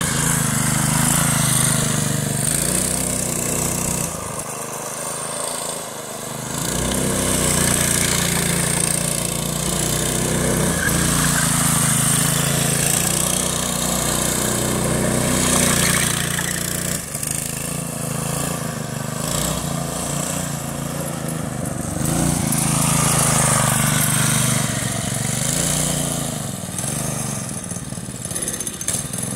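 Go-kart's Predator 212cc single-cylinder engine, fitted with a 22mm Mikuni carburettor and with its governor disabled, revving up and down as the kart accelerates and backs off. Loud stretches of open throttle alternate several times with quieter dips.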